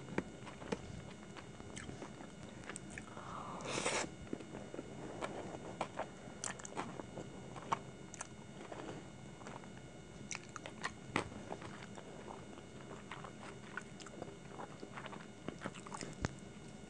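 Close-miked chewing of Hakka noodles, wet mouth smacks and small clicks, with a louder rush of noise about four seconds in.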